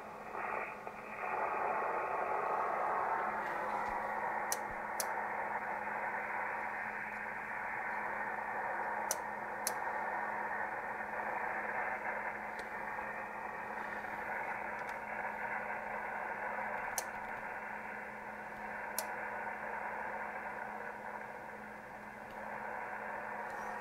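ICOM IC-751A receiver's speaker putting out an injected test signal as a steady rough hiss, cut off above the receiver's audio passband, over a steady low hum, with a few faint clicks. The signal is distorted, which shows the fault is not in the PLL.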